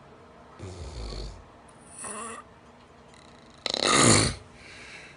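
A person snoring, with three noisy breaths in turn. The loudest and longest is a rough, buzzing snore starting about three and a half seconds in.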